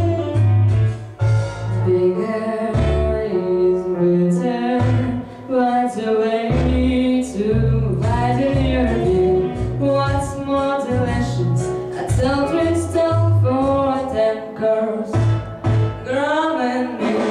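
A woman singing a show tune over an accompaniment track with bass and guitar, her held notes wavering in vibrato.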